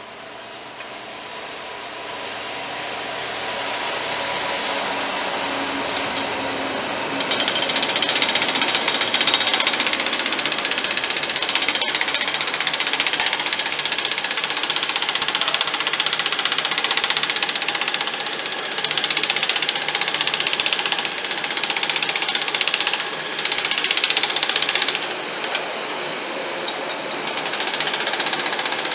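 Class 66 diesel freight locomotive approaching, its engine growing steadily louder. About 7 s in, it comes level and its container wagons start passing close by: a loud, continuous rattle and clatter of wheels on the rails with a high ringing hiss, lasting until the end.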